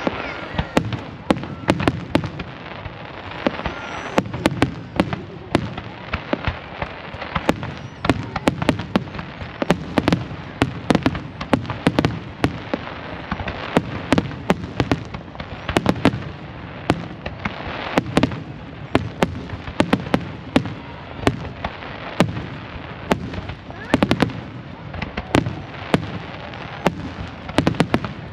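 Fireworks display in full barrage: sharp bangs and crackles follow one another several times a second without a break, over a constant low rumble.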